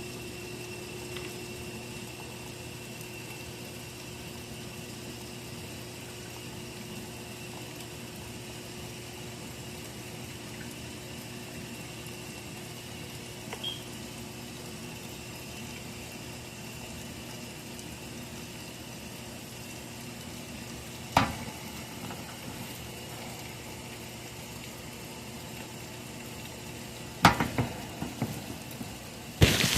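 Steady background hum and hiss with a few faint steady tones. One sharp click comes about two-thirds of the way through, and a short run of clicks and knocks comes near the end.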